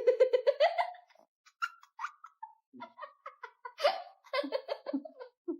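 A house cat chattering: a fast stuttering run of clicking chirps that rises in pitch over the first second, then breaks into short bursts. Cats chatter like this when fixed on a bird they cannot reach.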